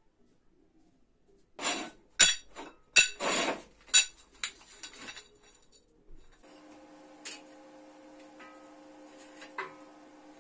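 Metal parts clinking and knocking together in a quick cluster of sharp clicks and clatters for a few seconds. About six and a half seconds in, a faint steady electric hum starts and keeps going.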